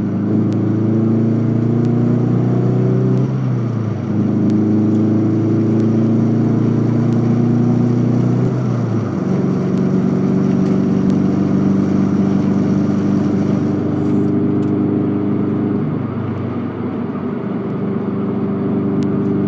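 Scion FR-S's flat-four boxer engine running under way, heard from inside the cabin. It is a steady engine note whose pitch shifts about four seconds in and again about nine seconds in, as the revs change.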